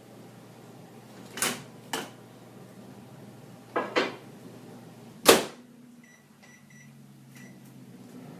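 Microwave oven being loaded and started: a few clunks and knocks, then its door shut with a bang about five seconds in, the loudest sound. Then come several short keypad beeps as the cooking time is punched in.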